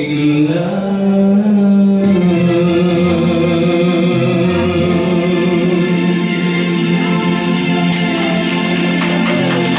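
A man's singing voice over a karaoke backing track, ending a slow ballad on one long held final note. A quick ticking beat comes in near the end.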